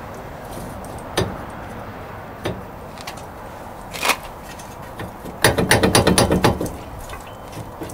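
Hammer taps on a Ford Expedition's wheel hub assembly to knock it loose after its bolts are out: a few single knocks, then a quick run of about a dozen rapid taps past the middle.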